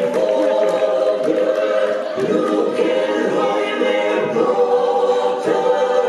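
A choir of voices singing a melody together, loud and steady, with no clear drumming.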